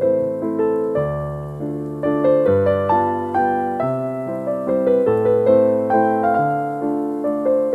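Background piano music: a melody over chords and low bass notes, each note fading away after it is struck.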